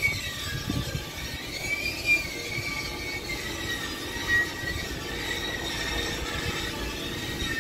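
Background music: a single high, slowly wavering melody line over a low rumble.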